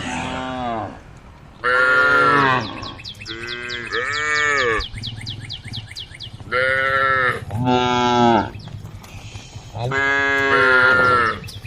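Cattle mooing: about six loud moos, each rising and then falling in pitch, two of them overlapping in the middle.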